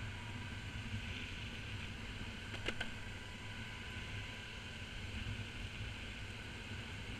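Steady low rumble and hiss of a small vehicle rolling along a paved path, with faint steady high tones over it and one brief click about two and a half seconds in.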